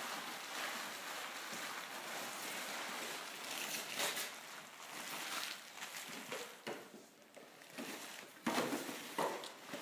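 Wrapping paper rustling and tearing as a boxed present is unwrapped by hand, in uneven bursts with a few louder rips.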